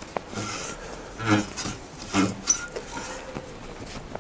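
Locking pliers working a steel engine mounting bolt out of the frame, with small metal clicks and scraping as the bolt turns. Two louder, lower noises come about a second and two seconds in.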